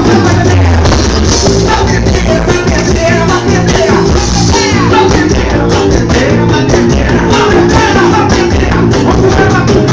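Loud live music from a carnival band: drums and percussion beating a steady rhythm under singing.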